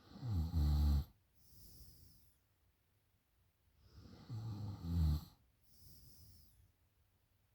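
A woman snoring in deep drunken sleep: two loud, rattling snores on the in-breath about four seconds apart, each followed by a quieter, breathy exhale.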